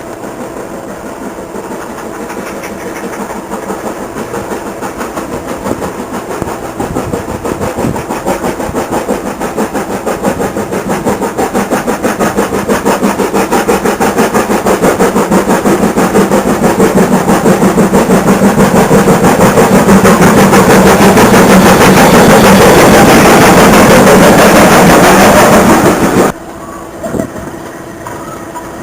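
Steam train running, a fast rhythmic beat that grows steadily louder as it comes closer, then cuts off abruptly near the end, leaving a quieter steady background.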